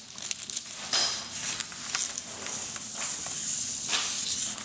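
Paper rustling and sliding on a drafting table as a sheet is laid over a plan, with a few sharp crackles early on, then a steady papery hiss in the second half.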